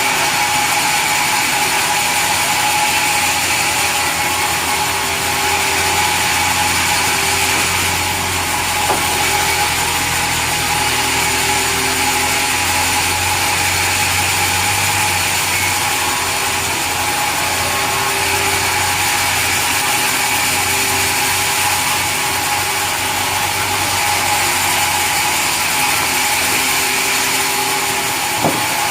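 Sawmill saw machinery running steadily while sawing mahogany wood, a constant mechanical whine and hum with a fainter tone that comes and goes every second or two.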